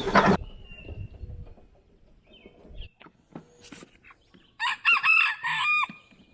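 Rooster crowing once, about four and a half seconds in: a loud call of several rising and falling parts lasting just over a second.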